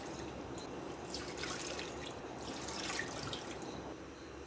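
Water poured from a glass into a large cooking pot of raw beef, with faint splashing and dripping.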